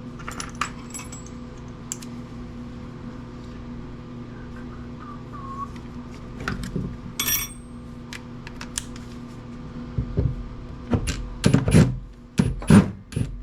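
Scattered metallic clicks and knocks of a screwdriver bit being worked in a screw head and small metal parts being handled. The knocks come thicker near the end, and a steady low hum runs underneath.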